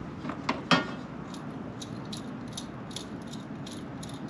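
Metal mounting rail and clamps being fitted to a pickup's bed rail: a sharp knock under a second in, then a run of light clicks, about three or four a second.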